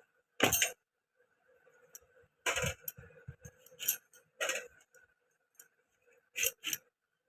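Knife chopping mangoes: six sharp knocks with a clinking edge at irregular intervals, the loudest about half a second in, two close together near the end.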